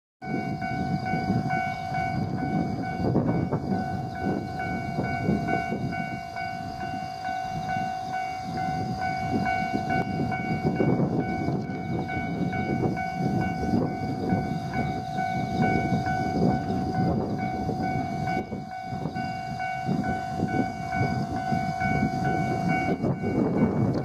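Japanese level-crossing warning bell ringing steadily, its electronic tone dropping out near the end. Under it runs a heavy low rumble throughout.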